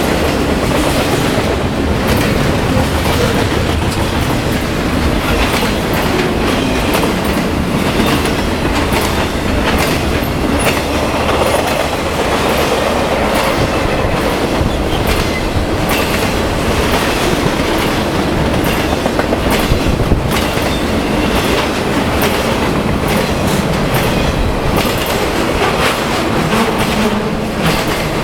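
Cars of a BNSF intermodal freight train, double-stack container cars and trailer flatcars, rolling steadily past: a continuous loud rumble of steel wheels on rail, with frequent clicks and clatter as the wheels cross the rail joints.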